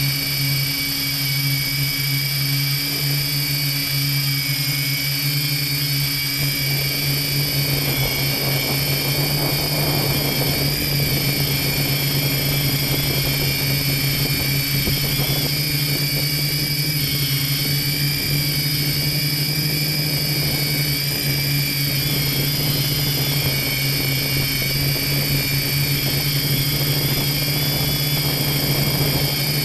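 Multirotor camera drone's motors and propellers running steadily, a constant whine with several fixed pitches, heard from the aircraft's own camera. A rushing noise joins about seven seconds in.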